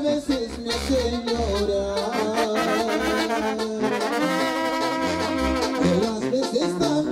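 Mexican banda brass band playing an instrumental passage: trumpets and trombones carry the melody over a pulsing bass line.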